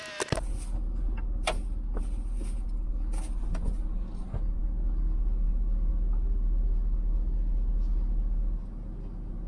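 Steady low rumble of a running vehicle, with a few sharp clicks and knocks in the first few seconds. The rumble drops lower near the end.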